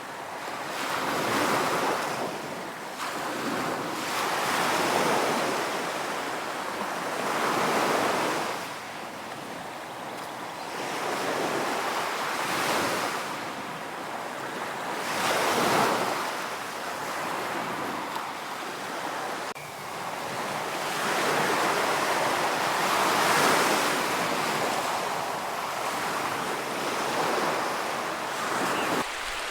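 Ocean surf: waves breaking and washing onto a beach, the rush swelling and falling away every few seconds.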